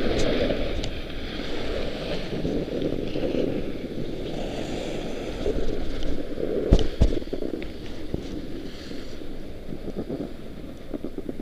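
Snowboard sliding and carving over packed, chopped-up snow, a continuous scraping hiss mixed with wind on the microphone. A couple of sharp knocks come about seven seconds in.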